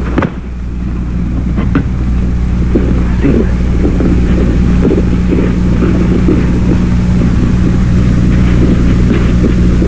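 An engine running at a steady low drone, rising slightly in level over the first few seconds, with a sharp click right at the start.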